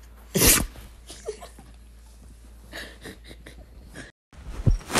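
A dog sneezing once, short and sharp, about half a second in, followed by faint rustling. Near the end, after a brief drop-out, comes a thump and another loud, noisy burst.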